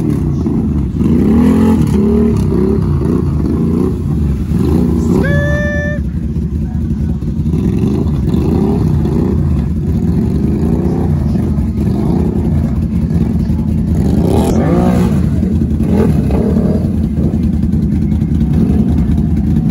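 Lifted four-wheeler (ATV) on tall mud tires, its engine revving up and down as the throttle is worked to hold a long wheelie through shallow water.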